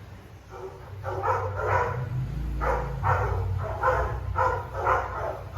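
A dog barking repeatedly, about two barks a second, over a low rumble.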